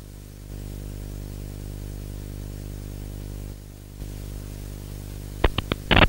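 Low, steady electronic drone of an intro sound effect, with about four short, sharp glitch clicks near the end.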